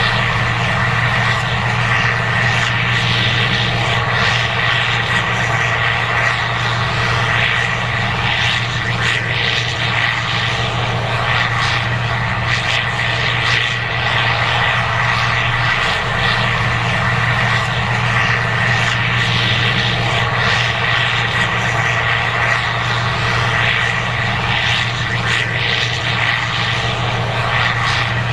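Case IH 2188 Axial-Flow combine running steadily while harvesting corn: a constant low engine drone with a thin, steady high whine over it.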